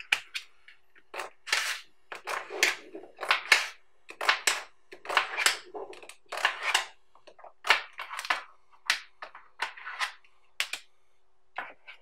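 Small magnetic balls clicking and rattling as a cube of them is snapped apart into small clusters and the clusters are set down, in quick irregular bursts that pause briefly near the end.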